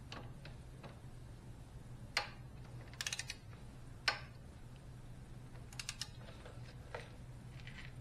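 Ratcheting torque wrench on a motorcycle heel peg bolt: sharp single clicks and short quick runs of ratchet clicking as the handle is worked back and forth during tightening.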